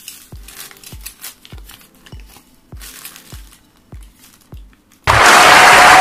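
Background music with a steady kick-drum beat, about three beats every two seconds, under the light crinkling of a plastic bag being handled. About five seconds in, loud audience applause and cheering cuts in suddenly and drowns everything else.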